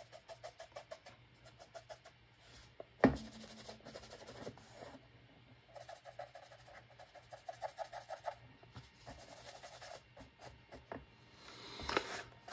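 A small brush scrubbing quickly back and forth over the ridged plastic face of a 3D-printed walkie-talkie prop, working in grimy weathering paint, at about five strokes a second in two spells. A single sharp tap about three seconds in.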